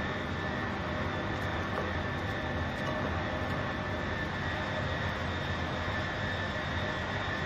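Steady whirring drone of a ventilation fan, with a few faint fixed whining tones over a constant rushing noise.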